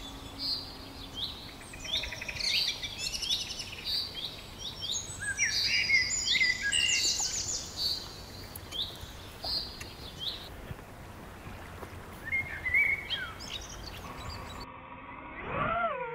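Wild songbirds chirping and singing: many short calls sliding up and down in pitch. Near the end the birds stop and a whine comes in, sliding up and down in pitch.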